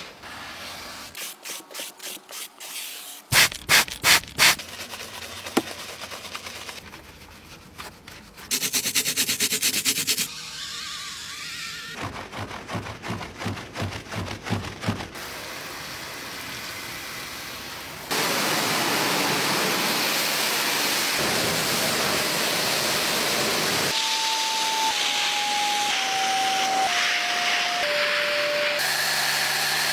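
Car-detailing sounds in quick succession: rhythmic scrubbing and rubbing strokes, then from about 18 seconds a steady loud suction noise of a carpet extractor drawing water out of a floor mat. Near the end five short tones step down in pitch over it.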